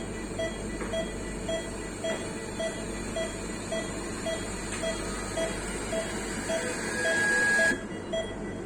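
Puritan Bennett 840 ICU ventilator pushing gas through its patient circuit during the Short Self Test: a steady hiss of flow. About six and a half seconds in, the flow swells into a loud rushing hiss with a whistling tone, then cuts off suddenly. A short beep repeats just under twice a second throughout.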